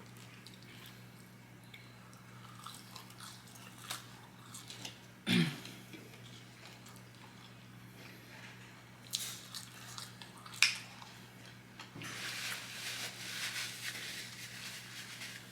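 Close-up eating sounds: chewing and biting with small wet clicks, two louder sharp sounds about five and ten and a half seconds in, and a longer hissing noise near the end.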